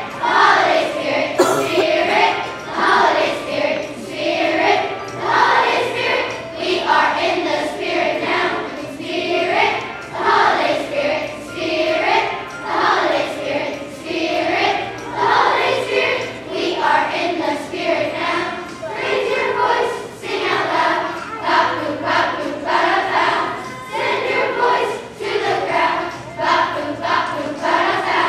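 Children's choir singing a holiday song together, in regular phrases.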